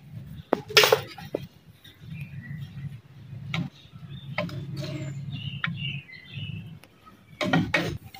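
A metal spoon clicking and scraping against a ceramic bowl while cumin seeds are stirred into yogurt raita, with a sharp clink about a second in, over a low steady hum.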